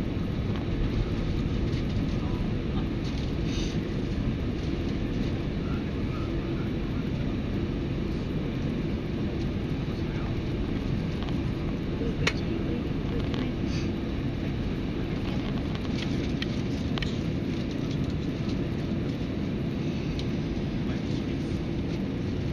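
Airbus A320 cabin noise: a steady low roar of the jet engines and airflow heard from inside the passenger cabin, with a sharp click about twelve seconds in.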